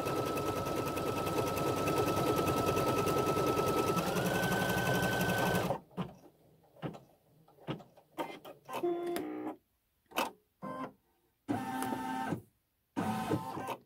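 Baby Lock embroidery machine stitching at speed, a fast run of needle strokes under a steady motor whine that steps up slightly in pitch about four seconds in. It stops abruptly about six seconds in. Short clicks and brief motor whirs follow as the machine finishes the hooping.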